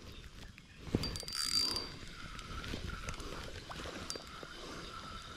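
Fishing reel being cranked to retrieve a lure, a faint, even whirring. About a second in there is a sharp click and a short high hiss.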